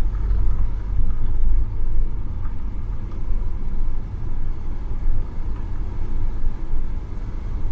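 Wind blowing at over 75 mph buffeting the microphone: a steady, heavy low rumble with gusting swells.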